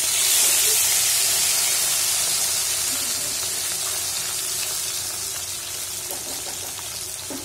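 Small mourola fish sizzling as they fry in hot mustard oil in a wok: a loud hiss, loudest at first and slowly fading as the fish settle in the oil.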